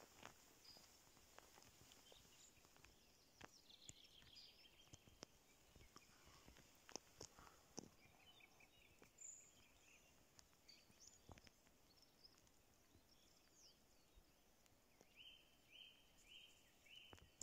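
Very quiet spruce forest with faint songbird calls: scattered high chirps and short trills, and a run of four quick notes near the end. A few faint clicks are heard along with them.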